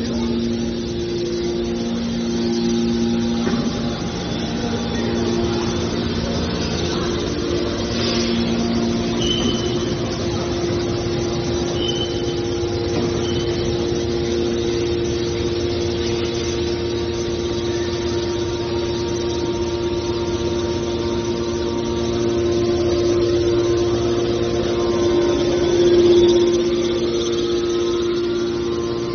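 Hydraulic scrap metal baler running: a steady mechanical drone with a held pitched whine from its hydraulic power unit, a few brief high squeaks in the first half, and a swell in loudness near the end as it works under load.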